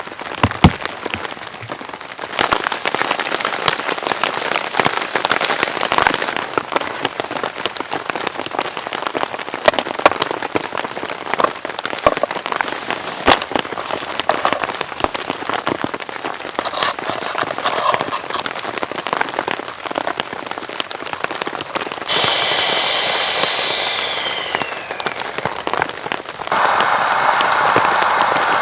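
Heavy rain falling steadily, with many large single drops striking sharply close by. The character of the rain shifts abruptly a few times, and near the end it gives way to a narrower, steady hiss.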